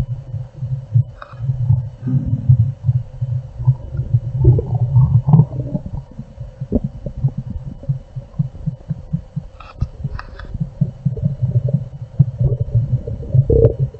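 Human stomach rumbling: a continuous low gurgling with rapid, irregular bubbling pops and a few brief higher squeaks.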